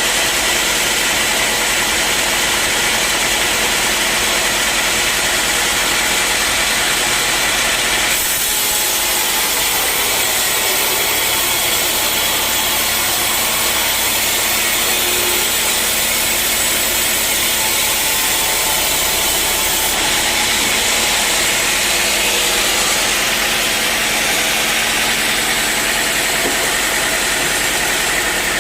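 Sawmill saw and machinery running steadily. From about a third of the way in until about two-thirds through, the sound turns brighter and higher, as the saw cuts through a teak board.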